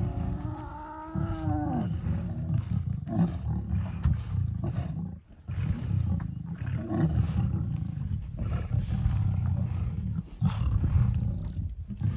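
Lions growling and snarling while they fight over a steenbok kill. A long, drawn-out snarl rises and falls in the first two seconds, then deep, rumbling growls run on, breaking off briefly about five and ten seconds in.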